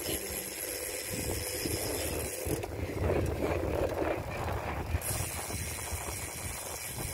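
Wind rumbling on the microphone of a phone carried on a moving bicycle, with road and bike noise underneath. It swells louder for a couple of seconds in the middle.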